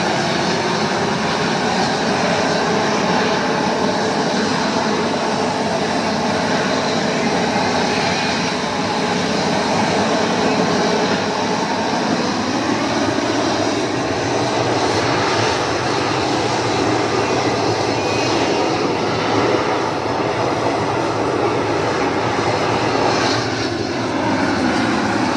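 Gas torch burner running with a steady rushing noise, heating torch-on bitumen waterproofing membrane to bond it.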